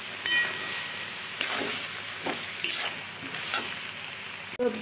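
Vegetables frying in a steel kadai with a steady sizzle. A steel spatula stirs and scrapes against the pan about six times, one stroke giving a brief metallic ring.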